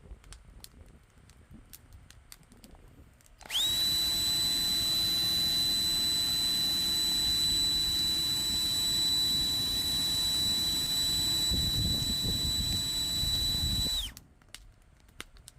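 Large electric blower spinning up with a quick rising whine about three seconds in, then running with a steady high-pitched whine and rush of air for about ten seconds before shutting off; it is blowing air into a wood campfire to get it burning. Faint crackling clicks of the fire can be heard before and after.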